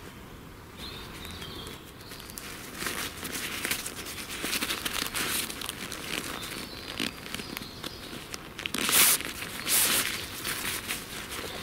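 Camo poncho fabric rustling and crinkling in irregular handfuls as it is worked out of its stuff sack, with the loudest burst of rustling about nine seconds in.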